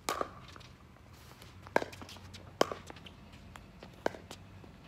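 Pickleball rally: paddles striking the hard plastic ball, a series of sharp pops roughly a second apart.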